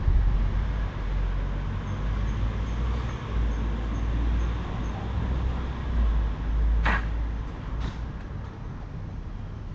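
A single sharp bang about seven seconds in, followed a second later by a fainter knock, over a steady low rumble.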